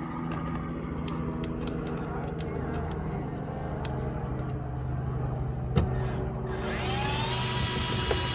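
Cordless drill spinning up with a rising whine that then holds steady, driving a screw, over background music.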